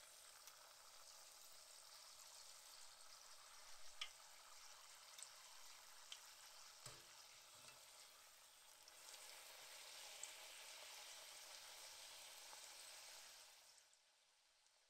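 Pastry dough deep-frying in hot oil: a faint, steady sizzling hiss with a few light taps in the middle. It grows a little louder about nine seconds in, then fades out near the end.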